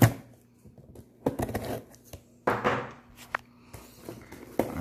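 Cardboard shipping box being opened by hand: a sharp knock at the start, then several short scratchy bursts of packing tape being cut and torn off the flaps.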